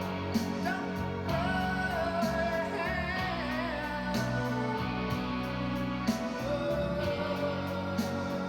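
A slow song: a singing voice with vibrato over steady instrumental accompaniment.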